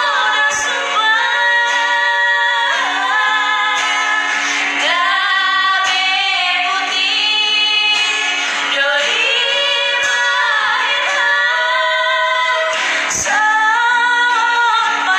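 Two women singing a song together, holding long notes, to a strummed acoustic guitar.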